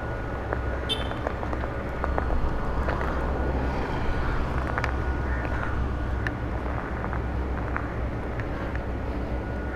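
Steady low rumble of outdoor road ambience, getting a little louder about two seconds in, with scattered light clicks and taps.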